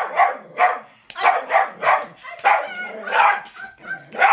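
Small terrier barking rapidly and repeatedly, around ten short sharp barks at two to three a second, excited barking at two people play-fighting beside it.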